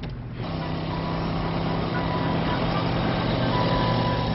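Highway traffic: car and truck engines running with tyre and road noise as a steady low drone. A few short high tones cut in now and then.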